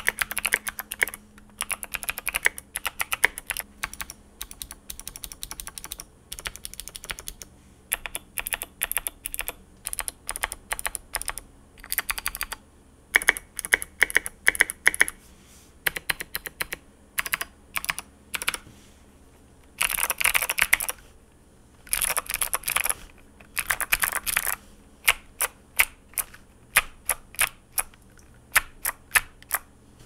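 Modded Keychron K4 mechanical keyboard with lubed NK_Sherbet clicky switches and Domikey SA doubleshot ABS keycaps being typed on: quick runs of sharp key clicks, a few dense bursts past the middle, then slower single keystrokes, about two to three a second, near the end.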